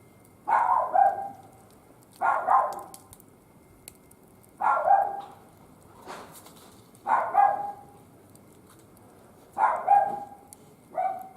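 A dog barking in short bursts, six times at an even pace of about one every two and a half seconds.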